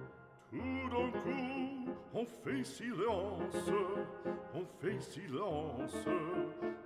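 Background music: a melody whose pitch wavers, over a steady low bass note, coming in after a brief lull about half a second in.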